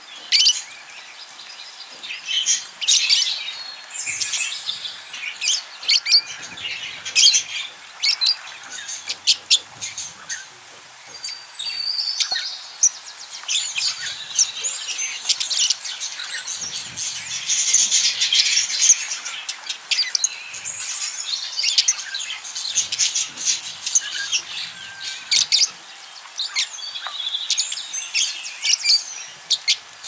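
A flock of budgerigars chirping and chattering, many short high calls overlapping throughout.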